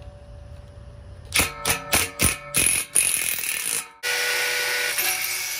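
Makita 18V cordless drill with an 8 mm socket driving a 1/4-inch hex-head Tapcon concrete screw through a steel bracket into the wall, in several short trigger pulses and then a longer run. About four seconds in it cuts to a drill boring a masonry bit into the concrete wall, a loud steady grinding.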